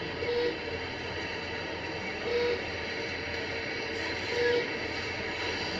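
A woman's laboured breathing through a mask, with a short whistling wheeze on each breath about every two seconds over a steady hiss. It is the sign of her breathing problem.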